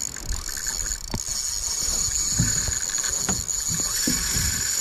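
Spinning reel's drag giving line with a steady high whine as a large hooked fish pulls against the bent rod; the angler suspects the drag is set a little loose. A few short low knocks sound alongside.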